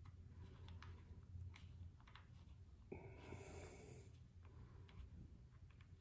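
Near silence: a steady low hum with a few faint clicks from a small key tightening screws in motorcycle handlebar controls, and a soft hiss about three seconds in.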